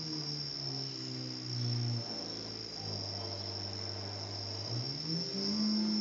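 Fisher & Paykel SmartDrive washing machine motor driven by an RC electronic speed controller, running with an electronic whine. The whine steps down in pitch over the first couple of seconds as the motor slows, holds low, then climbs back up near the end as it speeds up again. A faint high-pitched whine runs steadily underneath.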